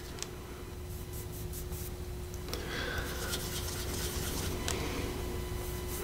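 Faint rubbing and light scratching of fingertips on skin and a plastic eyeshadow palette as powder shadows are swatched, over a faint steady hum.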